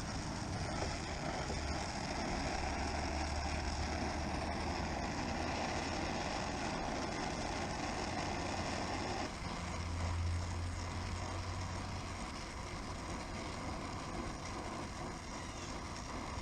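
Oxyacetylene torch flame burning steadily as a copper refrigerant line joint is brazed: a continuous rushing hiss whose tone changes about nine seconds in.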